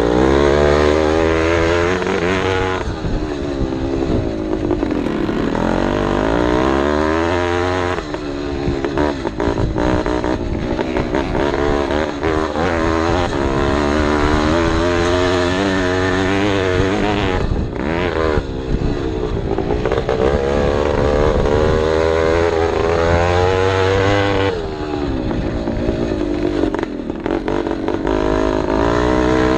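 Vintage motocross bike's engine heard close up from the bike itself while racing on a dirt track: the engine note climbs and falls over and over as the rider accelerates and shifts, with the throttle backed off briefly about 3, 8, 17 and 24 seconds in.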